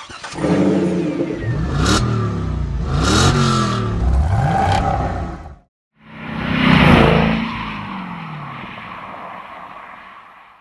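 Dodge Challenger running on an MBRP aftermarket cat-back exhaust, revved several times, the pitch rising and falling with each blip. After a short break it swells up to a peak and fades out, as a car does driving past.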